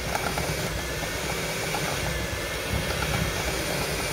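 Electric mixer running steadily, its beaters churning butter and sugar in a bowl; the butter is still cold and unsoftened.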